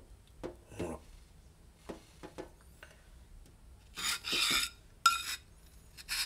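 A straightedge scraping and rubbing against the face of a coarse whetstone in a few short strokes. The longest stroke comes about four seconds in. The straightedge is being used to check how far the stone's surface has dished.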